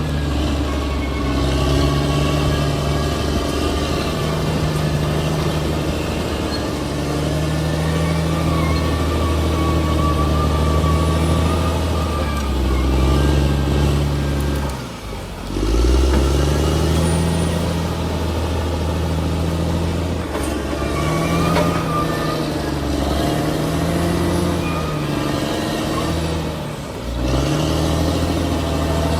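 Bulldozer's diesel engine working under load, its pitch rising and falling as the throttle changes. It drops off briefly about halfway through and again near the end, then picks back up.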